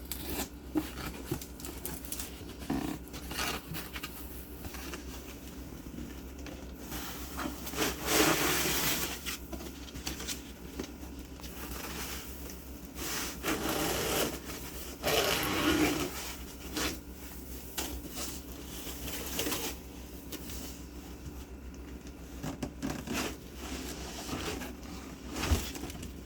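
Packaging being handled as a PC case is pulled from its box: irregular scraping, rustling and crackling with small knocks, in uneven bursts.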